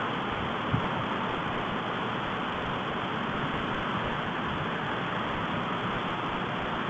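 Steady, even hiss picked up by a stork-nest webcam's microphone, with one short click just under a second in.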